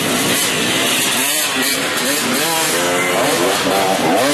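Dirt-bike engines revving as the riders come along the trail, their pitch rising and falling over and over with the throttle.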